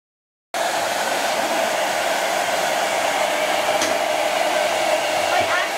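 Handheld hair dryer running, a steady rush of air that cuts in abruptly about half a second in.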